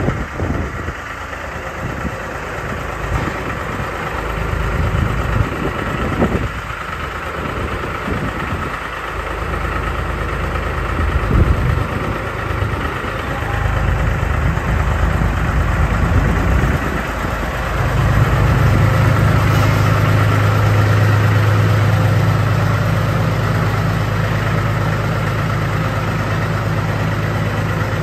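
Engine of a Mastermind crop-spraying machine running; about two-thirds of the way through it settles into a louder, steady low drone.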